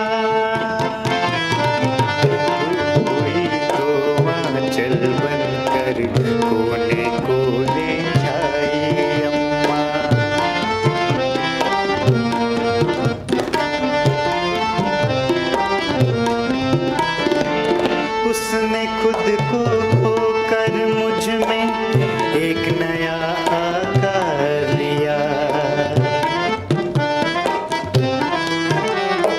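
Harmonium and tabla playing together: steady held reed notes and chords, with a running tabla rhythm over them.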